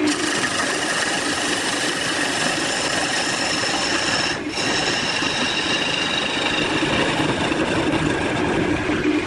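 Woodworking power tool running steadily on wood, with a brief drop in the noise about four and a half seconds in.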